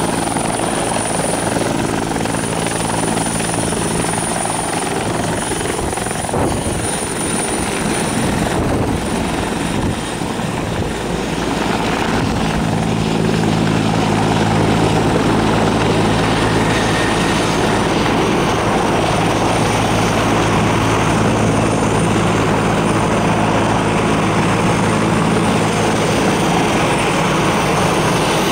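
Bell 412EP helicopter hovering and moving low and close, its twin-turboshaft engines and four-blade main rotor running steadily. The sound wavers partway through and then settles a little louder as the helicopter turns side-on.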